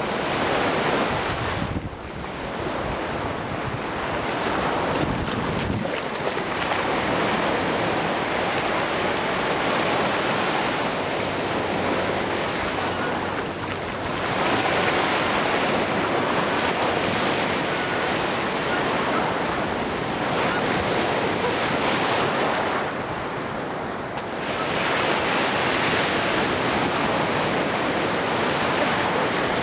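Ocean surf breaking and washing up the beach, swelling and easing in long surges as each wave comes in, with wind buffeting the microphone, most strongly in the first few seconds.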